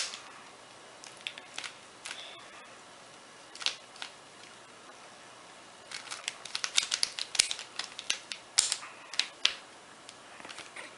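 Rubik's cube being turned quickly by hand, its plastic layers clicking as they snap round: scattered single turns at first, then a dense run of rapid turns from about six to nine and a half seconds in, as the last layer is worked through.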